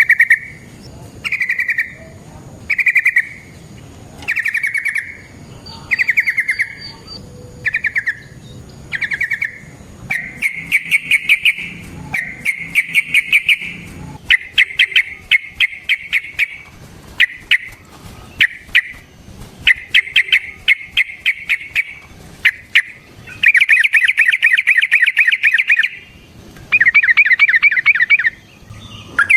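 Yellow-vented bulbul (trucukan) singing: short bubbling calls repeated about every second and a half, then, from about a third of the way in, longer rapid rippling phrases, the longest near the end.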